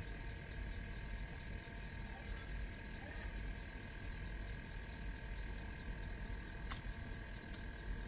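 Frogs calling in a steady night chorus over flooded fields, with a continuous high drone above and a low rumble underneath; a single sharp click about three-quarters of the way through.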